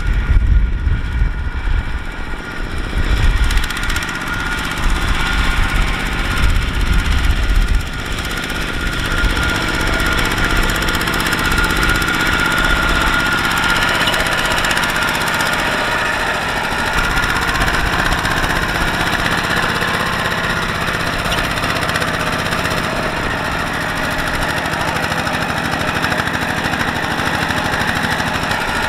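Kubota walking tractor's single-cylinder diesel engine knocking steadily under load as it pulls a trailer of rice sacks. For roughly the first eight seconds heavy low thumps dominate; after that it settles into a steadier, higher-pitched running.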